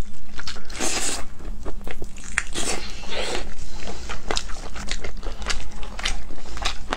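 Two people biting and chewing sauce-glazed chicken wings close to the microphone: many quick, irregular sharp clicks and smacks of teeth pulling meat from the bone.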